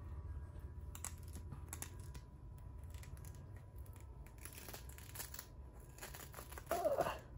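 Purrble plush robot purring close to the microphone: a low, steady rumble, with crinkly rustling as its fur brushes the mic. A brief, louder voice-like sound comes near the end.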